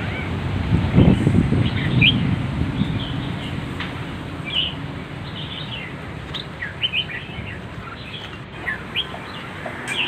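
Small birds chirping, many short high chirps scattered and overlapping, over a low rumble that is loudest in the first couple of seconds and then fades.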